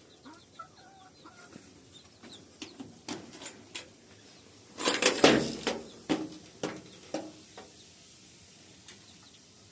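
Birds in a small bird house, with a few short calls near the start, then a run of clicks and knocks that peaks in a loud cluster about five seconds in and tails off.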